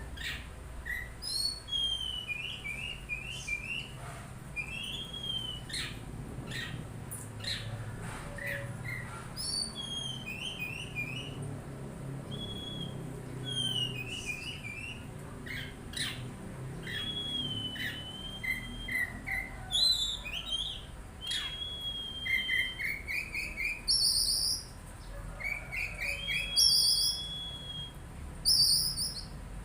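Oriental magpie-robin (kacer) singing a continuous, varied song of whistled phrases, quick trills and slurred notes, with a few long steady whistles in the second half.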